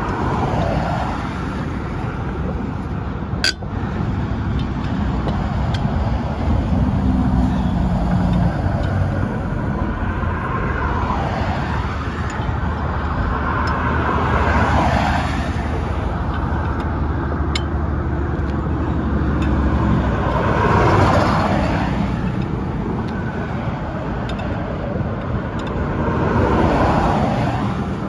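Cargo van driving on the highway: a steady rumble of engine and tyres on the road, with a louder whoosh swelling and fading every few seconds, and a single sharp click about three and a half seconds in.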